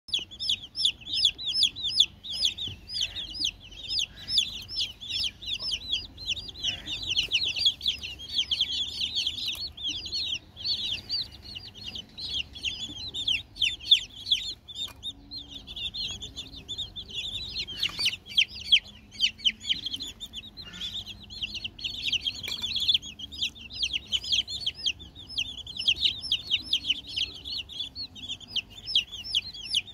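A flock of young domestic chicks peeping without pause, many short, high cheeps overlapping, with a couple of brief knocks.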